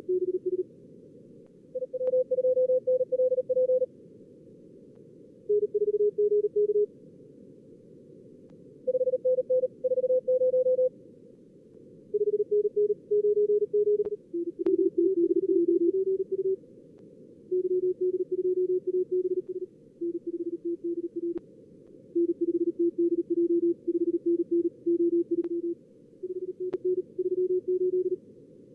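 Fast Morse code (CW) tones from a contest logger's practice simulator: bursts of keyed tones at a few different pitches, from simulated stations calling and the operator's own sent exchanges on two radios, over a steady band of receiver hiss.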